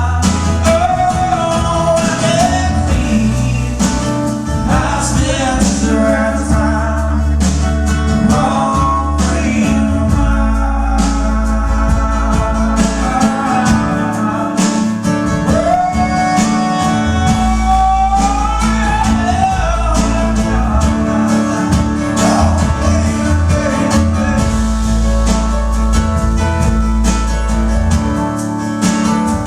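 A live song: a voice singing long, sliding notes over guitar and a steady bass line.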